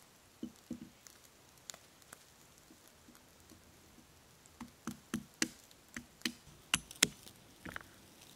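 Hatchet knocking against a log to crack open green walnuts: a few light knocks, then a quicker run of sharper knocks from about halfway, roughly three a second.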